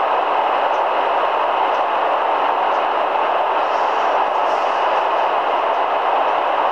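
Steady static hiss from a Grundig G4000A shortwave receiver tuned to 27.820 MHz in the 11-metre CB band, heard in a gap between transmissions while no station is on the air.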